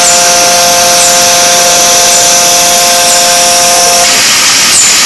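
Forging machine running with a steady machine whine of several held tones over a loud hiss. The whine stops about four seconds in, leaving the hiss.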